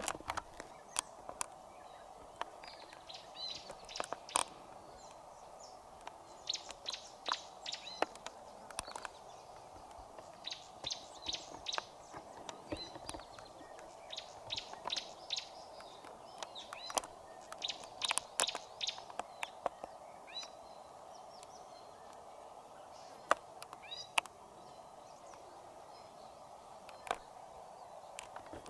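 Wild birds chirping faintly in quick runs of short, sharp notes, over a steady background hum of the savanna.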